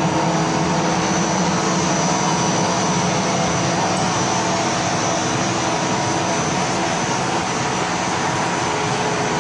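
Snack-food extruder line running: a steady machine drone with a thin, steady high whine.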